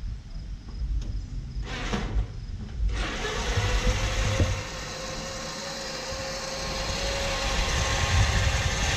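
Electric-converted MTD Yard Machine lawn tractor driving on gravel: its 24-volt winch-motor drive gives a steady whine from about five seconds in, over the hiss of tyres rolling on gravel.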